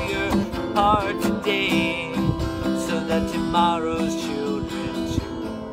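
Acoustic guitar being strummed and picked, with a man's voice holding sung notes with vibrato in places.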